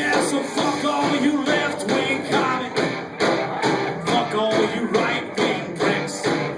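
Country-rock band music with guitar, singing and a steady drum beat.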